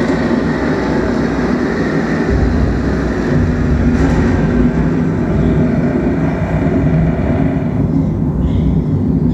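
Themed ambient soundtrack played inside a wooden ark exhibit, meant to evoke being aboard the ark: a steady low rumble that grows heavier about two seconds in.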